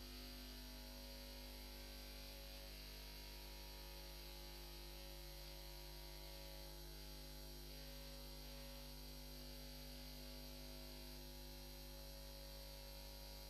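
Faint, steady electrical mains hum with a hiss over it, and nothing else.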